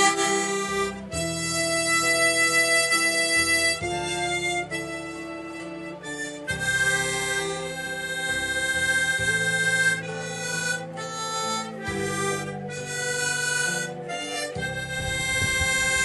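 Background music: an instrumental passage of a song, a slow melody of long held notes over a low accompaniment.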